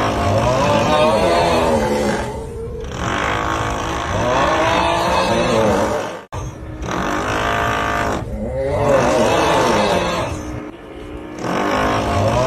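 The 'uuuugghhh' snoring meme sound: a drawn-out, groaning snore repeated every two to three seconds over a steady drilling noise. The loop breaks off sharply for an instant about halfway.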